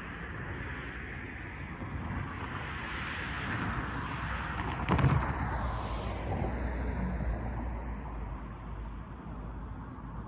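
A vehicle passing by at speed: a rushing noise builds, a sharp knock comes about five seconds in, then the sound falls away in a descending whoosh.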